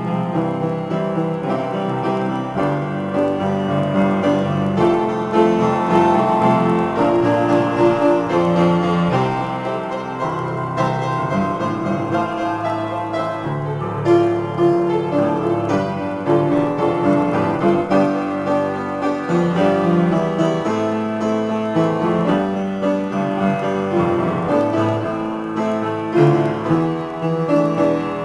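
Solo piano improvisation played continuously with both hands, dense chords and lines moving through the low and middle registers, with louder accented chords about halfway through and near the end.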